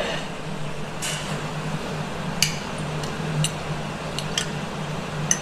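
Light clinks of a fork against a plate as scrambled egg is tasted, four short ones spaced about a second apart, over a steady low room hum.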